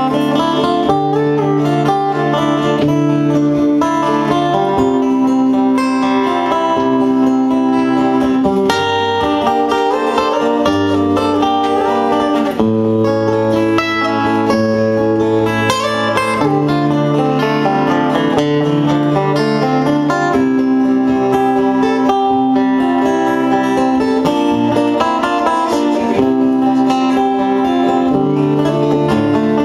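Guitars, among them an acoustic guitar, playing a live instrumental passage of plucked and strummed chords, the bass notes changing every few seconds.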